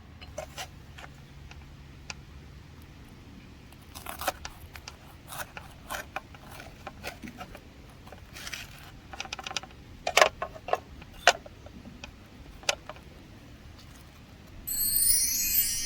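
Scattered clicks, scrapes and clinks of cooking utensils and cookware being handled while breakfast is prepared, with a couple of sharper knocks about ten and eleven seconds in. Background music comes in near the end.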